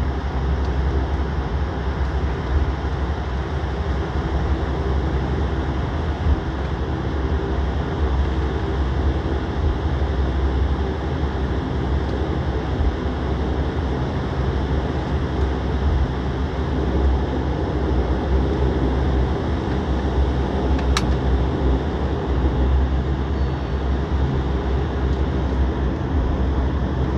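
Steady cabin rumble of an airliner rolling slowly along the runway on low engine power, heavy in the low end, with one sharp click about three-quarters of the way through.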